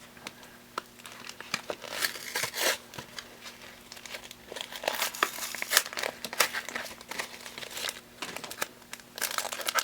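Foil booster-pack wrapper crinkling and rustling as it is handled and torn open, an irregular run of crackles.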